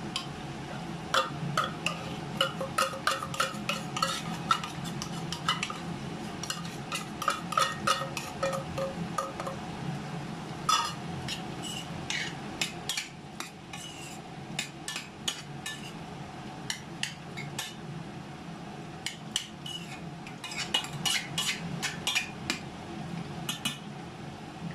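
Metal spoon scraping tuna out of a tin can and stirring it into vegetables in a stainless steel pot: many light clinks and scrapes with a short metallic ring, thinning out in the middle and picking up again later, over a steady low hum.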